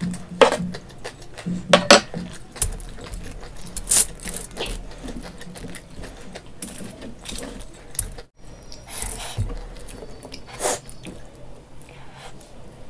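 Cutlery clinking and scraping against a plate in irregular sharp clicks as noodles are eaten, with quieter eating sounds between.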